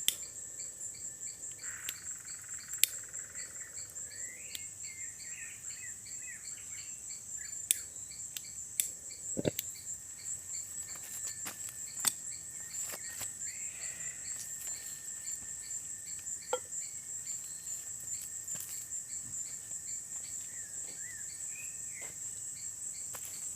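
Crickets chirping in a steady, rapid high trill, with scattered sharp clicks and knocks.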